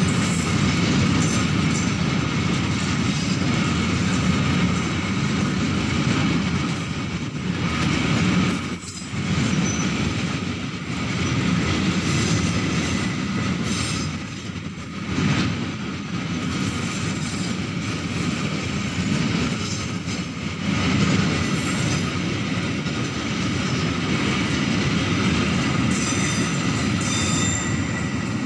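Pertamina fuel tank wagons of a freight train rolling past close by: a steady rumble and rattle of steel wheels on the rails, dipping briefly a couple of times as the wagons go by.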